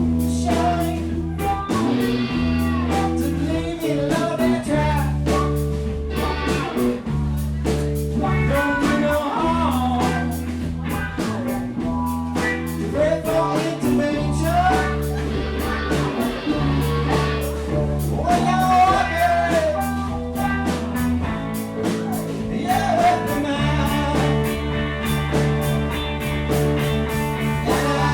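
Live blues-rock band playing: slide guitar gliding between notes over bass, drums and a second electric guitar.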